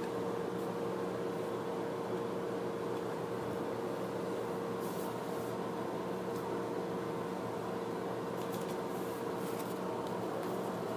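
Steady background hum with a held tone throughout, with faint light taps and rustles about five seconds in and again near the end as small heart-shaped tin boxes and a paper sticker sheet are handled.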